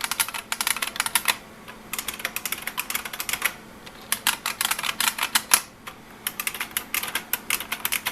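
Typing on an IBM Model M2 buckling-spring keyboard: quick runs of sharp clicky keystrokes, broken by short pauses three times. The keyboard's plastic build gives its keys a light, higher-pitched sound.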